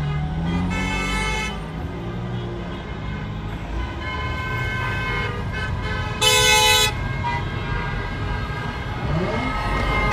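Car horns honking over the low rumble of a car's cabin while driving: a softer honk about half a second in and a loud, sharp honk lasting well under a second about six seconds in.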